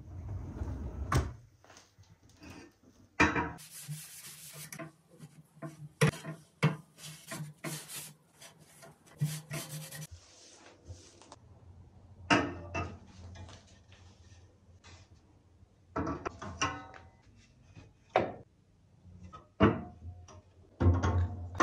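A cloth rubbing over a bamboo-and-metal countertop shelf as it is wiped, with scattered knocks and clacks as the shelf is moved on a stone countertop and spice jars are set on it.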